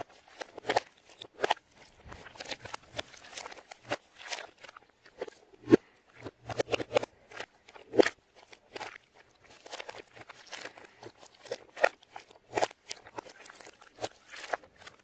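A run of irregular crisp clicks and crunches played backwards, with a few louder knocks standing out, about six, eight and twelve seconds in.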